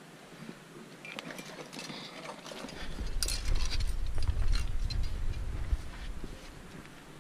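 Climbing gear clinking and scraping on rock as a climber moves up, in scattered clicks. A heavy low rumble on the head-mounted camera's microphone sets in about three seconds in and stops just before the six-second mark.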